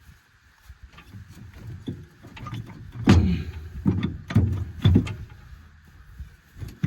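Heavy metal clunks and knocks as a differential housing is wrestled and wiggled out of a utility vehicle's frame, a run of sharp hits starting about three seconds in.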